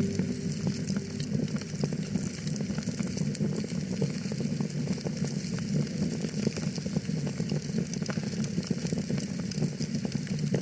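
Wood fire crackling in a fireplace: a steady hiss full of small pops and snaps. A held musical note fades out about a second in.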